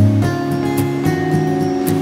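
Background music: sustained chords whose notes change every half second or so.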